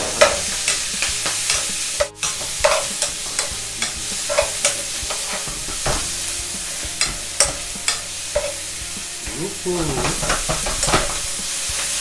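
Cabbage and onion sizzling as they are stir-fried in a frying pan with pork and scallion oil, with a metal ladle and tongs scraping and clinking against the pan. A sharp clack just after the start is the loudest sound.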